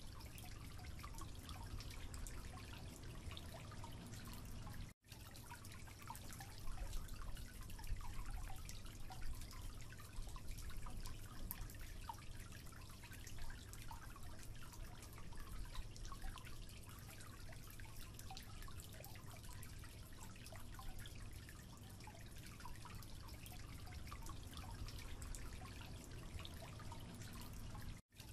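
Water dripping from a leaking tap into a sink, many small drips over a steady background hiss. The sound cuts out for an instant about five seconds in and again near the end.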